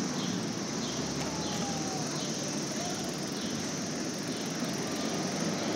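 Steady street ambience heard from a moving bicycle, with a faint high chirp repeating roughly once a second.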